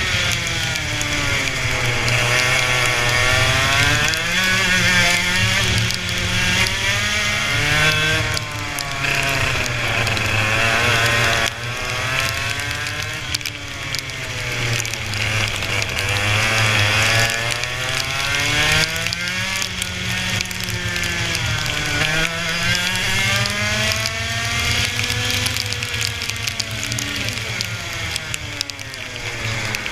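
Racing engine revving up and down as it laps, its pitch climbing and dropping back about every four to six seconds.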